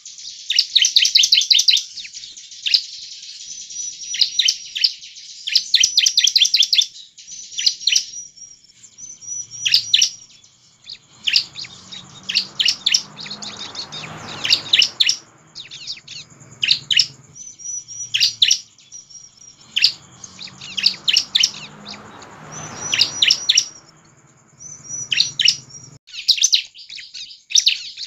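Bar-winged prinia (ciblek) singing: fast runs of sharp, high chirps, broken by a few short down-slurred whistled notes.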